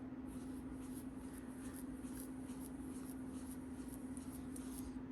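Cloth rubbing back and forth on a watch's mineral crystal, buffing Polywatch polish in short strokes about two or three a second, over a steady low hum.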